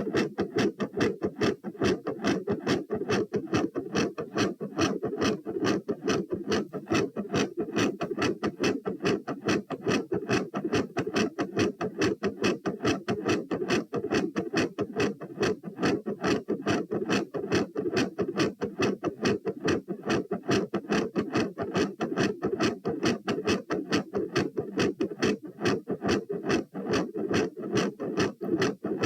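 A human heart beating fast and evenly, recorded at the chest: in each beat a quiet first heart sound and a loud second heart sound.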